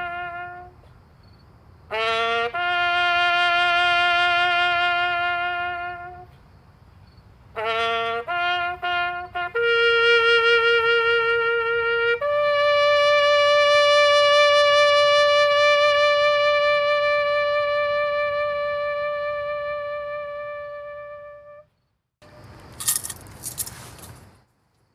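A lone trumpet playing a bugle call of slow held notes, with a quicker run of short notes in the middle, closing on one long sustained high note that fades out. A brief burst of noise follows near the end.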